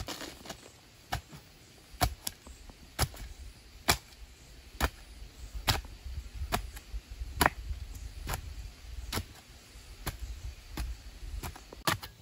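Long-handled hoe chopping into packed earth while digging a trench, one sharp strike about every second.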